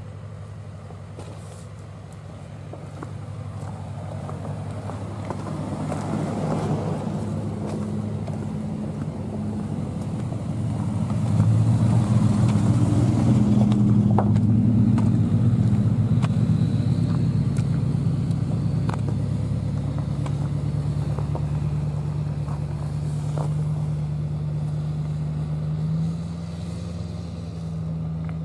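Heavy vehicle engine running. It grows louder over the first ten seconds or so, then holds a steady low note that steps up slightly near the end.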